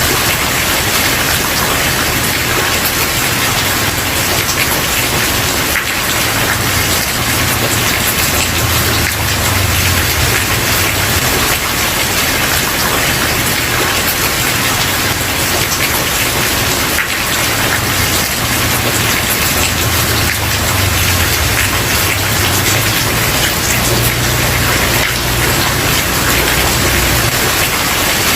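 Steady heavy rain falling on a wooden porch, a dense even hiss with individual drops ticking through it. A low rumble swells and fades underneath.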